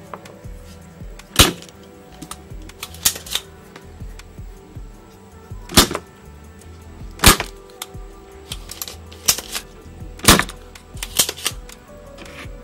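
Spring-loaded desoldering pump (solder sucker) snapping as its plunger fires and is cocked again: a series of sharp clicks every second or two, some in quick pairs, over background music.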